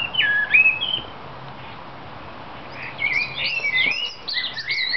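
Songbirds singing: a short whistled phrase in the first second, then after a pause a fast, varied run of high notes from about three seconds in.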